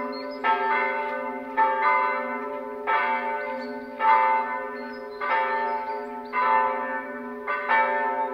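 Church bells ringing, with overlapping strikes roughly every second, often in close pairs, over a steady ringing hum. This is the bell ringing that precedes the service.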